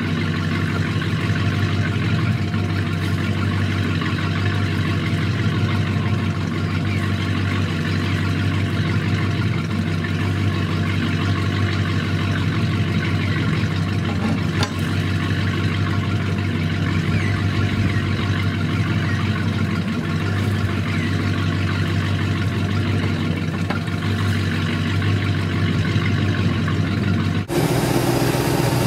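Ski boat's engine idling steadily, an even low hum; near the end the sound changes abruptly.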